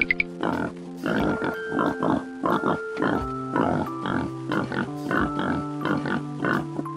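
Pigs grunting in a quick run of short grunts, about two a second, over background music with held notes.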